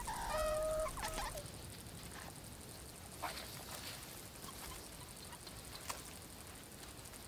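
Meerkat pups give short, warbling calls for about the first second. After that there are only faint scratches and light ticks from foraging in dry sand.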